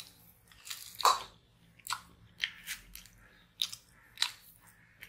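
Close-up crackly eating sounds: flaky, layered porota flatbread being torn by hand and chewed. About seven short, crisp crackles come at uneven intervals, and the loudest is about a second in.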